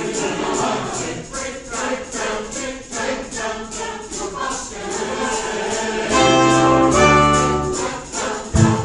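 Mixed choir singing with instrumental accompaniment over a steady percussion beat. About six seconds in, a loud chord is held for under two seconds, and near the end come heavy low thumps.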